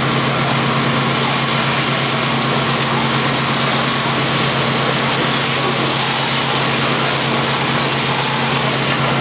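Fire engine's motor running steadily to drive its pump for the hose streams: a constant drone with an even hiss over it.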